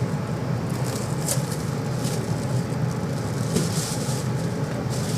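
Inside a tram: a steady low electrical hum, with several brief hisses.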